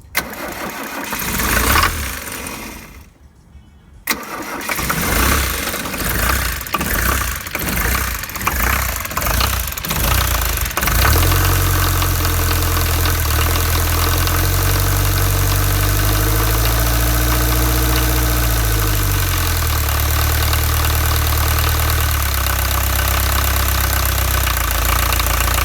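The 2.4-litre VM four-cylinder turbodiesel of a Rover SD1 2400 SD Turbo is cranked slowly on the starter with flat batteries: a short first crank, a click, then a longer crank with a slow chugging beat. It catches about eleven seconds in and runs steadily, its speed rising and falling once midway before settling at idle.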